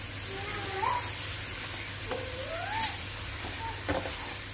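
Chicken necks sizzling in hot oil in an aluminium pot while a spatula stirs and scrapes them, with a few sharp clicks of the spatula on the pot. A few short rising whining tones sound over the sizzle, about a second in and again near the middle.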